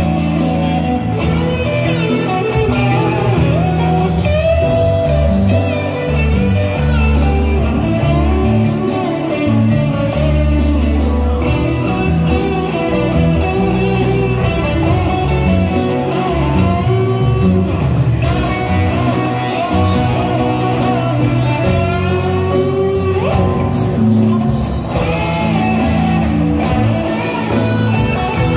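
A live rock band playing: drums, bass guitar, electric guitars and keyboard, with electric guitar lines standing out.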